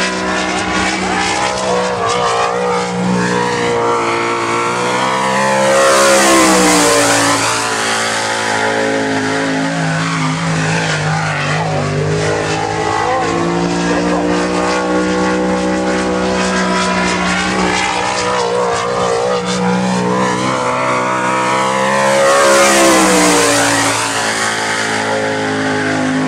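A dirt sprint car's V8 engine running flat out on a lone hot lap around a short oval. It rises and falls in pitch through the corners and passes close by twice, about 16 seconds apart, its note climbing and then dropping as it goes past.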